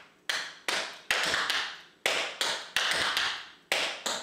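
Metal taps on tap shoes striking a practice board in a run of crisp taps, about two to three a second in short groups, each ringing briefly: double pickups danced starting on the left foot.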